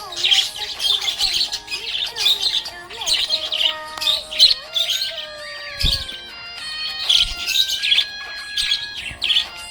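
Budgerigar chirping and warbling in quick, busy runs, over a background melody of steady held notes.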